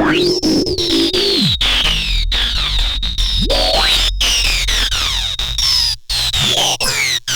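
Electronic music from a Blipblox synth patched into a Eurorack modular synthesizer: many sweeping pitch glides, mostly falling from high, one rising from the bass about halfway, over a low bass drone. The music cuts out briefly twice near the end.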